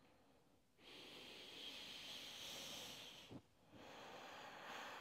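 Faint, slow breathing: one long breath lasting about two and a half seconds, a short pause with a soft low knock, then another breath.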